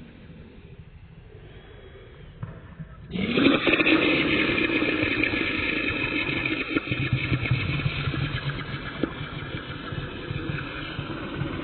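A dog snarling and growling, slowed down so it sounds deep and drawn-out. It is low and quiet at first, jumps suddenly much louder about three seconds in, then carries on steadily.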